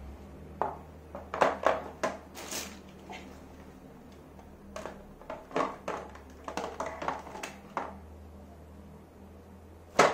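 Hard plastic clunks and clicks as a cordless drill and its charger are set into the moulded slots of a plastic carry case, in two bursts of handling, with one louder sharp knock near the end.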